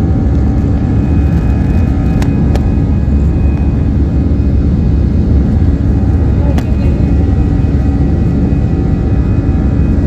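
Jet airliner's turbofan engines heard from a window seat in the cabin during the climb after takeoff: a loud, steady engine and airflow noise with several steady whining tones held over it. Short clicks come a little after two seconds in and again past six seconds.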